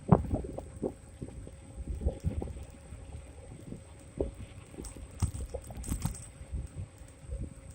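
Xiaomi M365 electric scooter ridden over a rough, wet road: irregular knocks and rattles from bumps, with wind rumbling on the microphone and a thin steady high whine.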